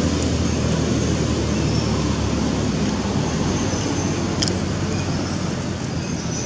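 Steady outdoor background noise, a low rumble under an even hiss, with faint short high notes now and then and a single sharp click about four and a half seconds in.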